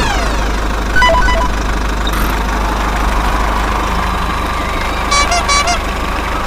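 Steady low vehicle-engine rumble, cartoon sound effect style, with two short pitched toots about a second in and three more in quick succession near the end.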